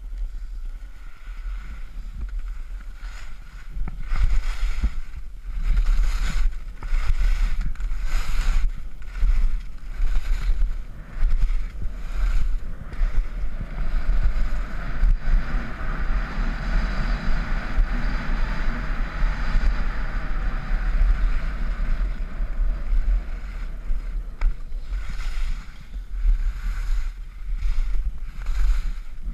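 Wind buffeting the microphone of a camera carried by a descending skier, a steady low rumble, with skis hissing and scraping over hard-packed snow. The scraping comes in repeated surges, steadier through the middle.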